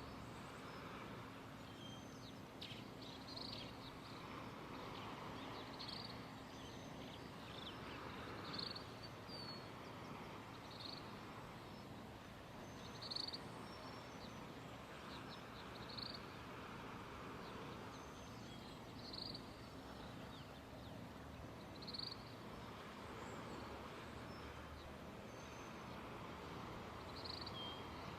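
Soft sea waves washing in slow swells that rise and fall every few seconds, with short high chirps repeating every two to three seconds.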